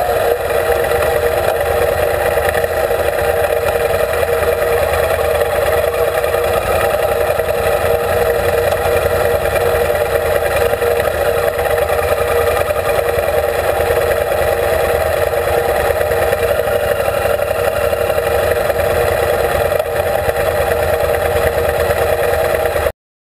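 Adventure motorcycle engine running steadily at low speed on a gravel track, heard through a bike-mounted camera, with no clear revving. The sound cuts off abruptly near the end.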